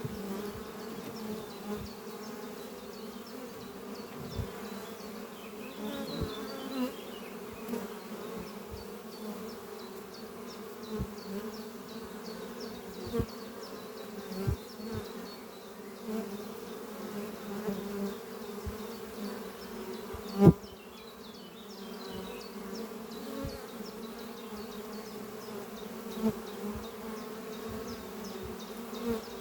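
Honeybees buzzing at a busy hive entrance, a steady hum with frequent brief louder buzzes as single bees fly close past. About twenty seconds in there is one sharp, loud knock.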